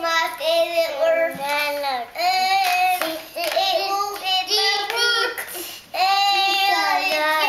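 A young boy singing in a high child's voice, unaccompanied, in phrases broken by short pauses.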